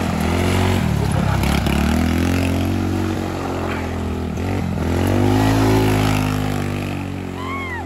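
150cc single-cylinder go-kart engine running as the kart is driven past, engine speed dipping twice and then rising before easing off near the end.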